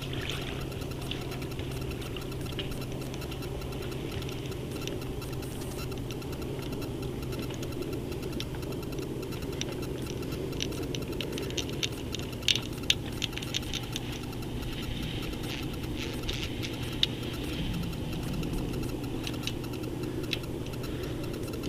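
A small motor runs with a steady low hum, and a few sharp clicks come about halfway through.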